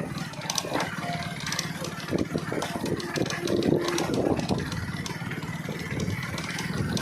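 Hero Splendor Plus BS6's small single-cylinder engine running while its front suspension gives out repeated sharp knocks and clatters, a khat-khat from the front fork as if something were broken inside. The knock persists on a new bike even after the ball racer was replaced.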